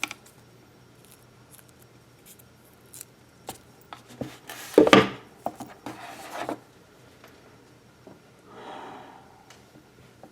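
Handling noise from a wristwatch with a rubber strap: scattered small clicks and rubbing, with a louder scraping rustle about five seconds in and softer ones after.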